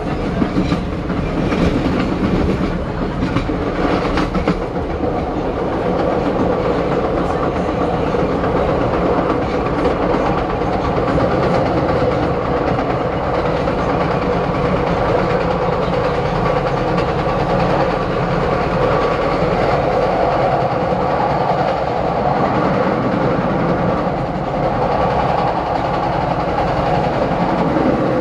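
A 1992 Morrison-Knudsen 3200-series subway car, heard from inside, running steadily at speed: continuous wheel-on-rail rumble with a steady hum from its General Electric 1262A4 traction motors. Rail-joint clicks are heard during the first few seconds.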